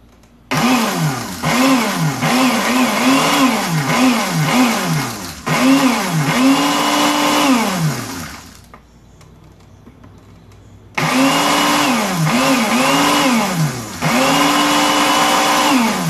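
Countertop blender pulsed over and over on dry eggshells, grinding them to powder. The motor spins up on each press and winds down when let go: a quick run of short pulses, then two longer ones, a pause of a couple of seconds, then more pulses.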